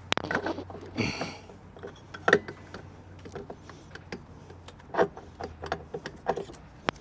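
Scattered clinks, knocks and a short rattle of tools and metal transmission parts being handled during scooter CVT work, over a faint low hum that stops about a second before the end.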